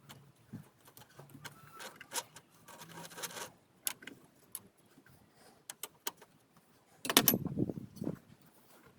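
Scattered light metallic clicks and taps of hand tools and parts being handled during engine-bay work, with a louder burst of scraping and knocking about seven seconds in.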